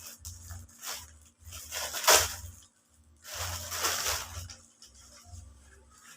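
Plastic parcel packaging being rustled and torn open in several noisy bursts, with a sharp crackle about two seconds in.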